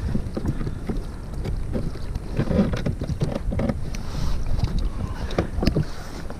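Wind noise on an action camera's microphone out on the sea, with many small clicks and knocks of hands handling gear on a plastic sit-on-top kayak's deck.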